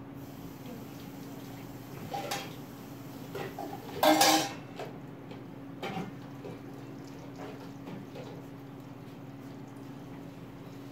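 A few short clinks and clatters of hard objects, the loudest a brief clatter about four seconds in, over a steady low hum.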